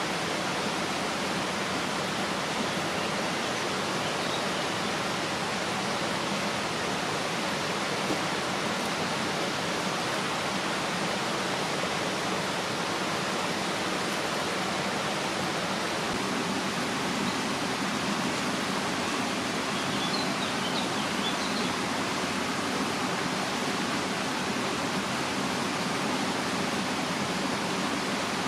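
Steady, even rushing noise that does not change. A few faint high chirps come in about twenty seconds in.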